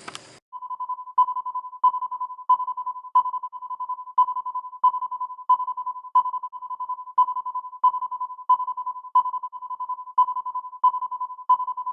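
Electronic outro music: a single high note re-struck evenly about three times every two seconds over a held tone at the same pitch, starting about half a second in.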